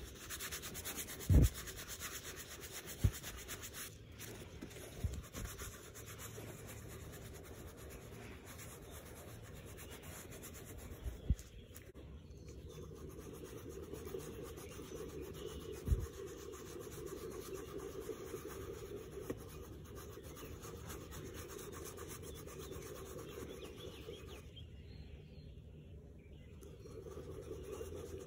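Gloved hand rubbing cream into the smooth leather of a handbag: a steady soft rubbing. A few short dull knocks from the bag being handled.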